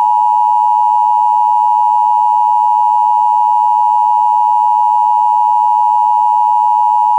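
Emergency Alert System attention signal: the two-tone alarm of 853 Hz and 960 Hz sounded together, held steady without a break. It marks the start of an emergency alert, here a tornado warning.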